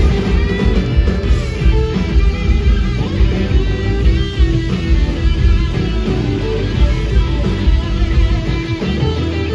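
Live blues-rock band playing loud: two electric guitars over a drum kit, with lead guitar lines that bend in pitch.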